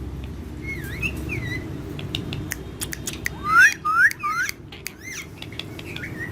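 Pet parrots calling: short whistled chirps that glide up and down, then a run of three loud rising calls about three and a half seconds in, with sharp clicks between.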